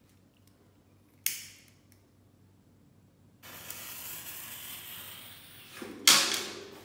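A lighter is struck with a sharp click about a second in; a couple of seconds later a firecracker fuse catches and hisses steadily as it sprays sparks. Near the end the lit firecracker is dropped and splashes into a glass tank of water.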